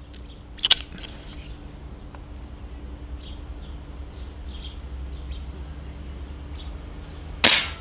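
A single shot from a Stoeger XM1 S4 Suppressor PCP air rifle: one short, sharp crack about a second in. A second, louder sharp noise with a short tail comes near the end.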